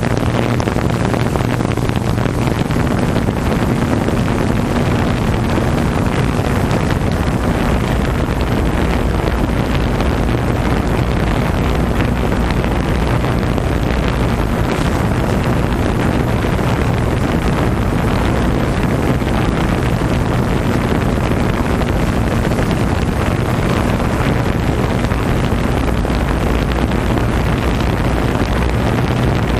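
A watercraft engine running in a steady drone, with wind rumbling on the microphone.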